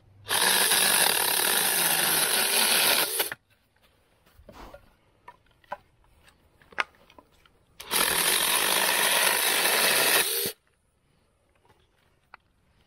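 Small 24-volt cordless electric mini chainsaw (F.Easy.D pruning saw) cutting a thin dead branch in two bursts of about three seconds each. Each burst starts and stops abruptly at full speed, as the battery motor is switched on and off.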